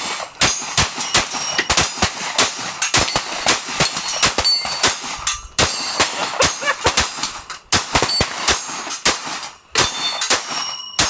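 Semi-automatic pistol fired in rapid succession, a full magazine of about 16 rounds emptied in a few seconds. Many sharp shots follow each other quickly, and short high ringing tones follow some of them.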